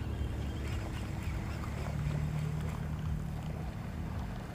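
Low steady hum of a distant boat engine across the water, swelling about two seconds in and easing off near the end, over a low wind rumble on the microphone.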